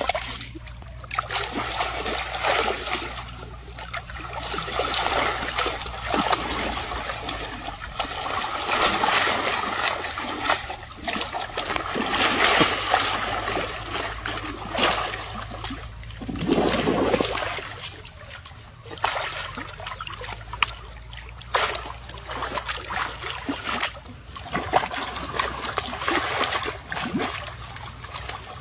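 Water splashing and sloshing in uneven bursts as a baby elephant wallows and rolls in a shallow muddy pool, stirring the water with its body and trunk.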